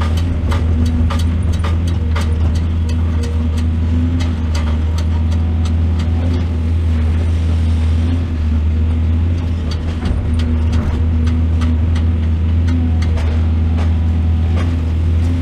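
Diesel excavator engine running steadily with a deep hum, with scattered knocks and clatter throughout.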